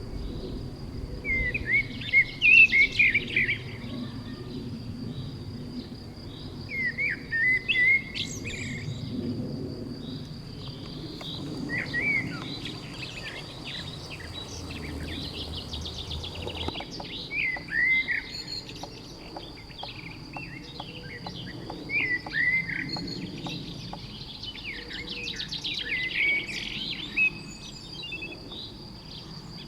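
Songbirds chirping and singing in short phrases that come every few seconds, over a steady high-pitched tone in the background.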